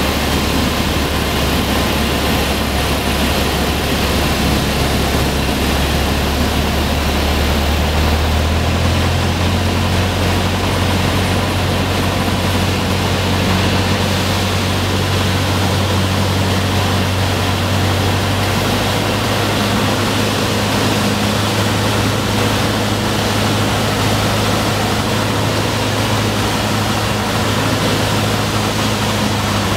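Cessna 152's four-cylinder Lycoming engine and propeller running steadily on approach to land, heard from inside the cabin with steady airflow noise. The low engine note rises slightly about eight seconds in and shifts again near twenty seconds.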